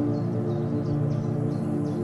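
Calm ambient background music with long held tones. Faint, short, high chirps come a few times a second above it.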